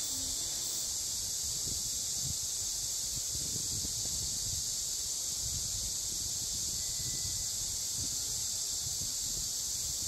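Cicadas droning in a steady, high, unbroken buzz, over a low rumble of the rocky mountain stream.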